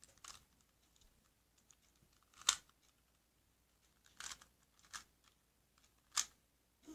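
Light plastic clicks and knocks from a Rubik's cube being handled and turned: a handful of short, separate clicks, the loudest about two and a half seconds in and again near the end.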